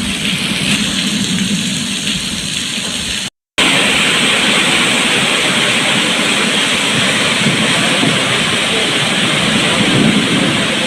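Waterfall, a steady rush of falling water. About three seconds in it drops out for a moment and comes back louder.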